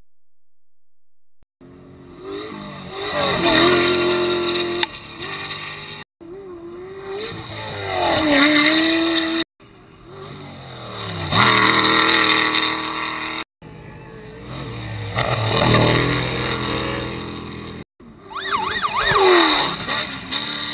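Unlimited-class desert race trucks running hard at high revs as they come up to and hit a jump, heard in five short clips cut together. Each clip builds to a loud pass, with the engine pitch rising and falling, and ends in an abrupt cut. The engine sound starts about a second and a half in.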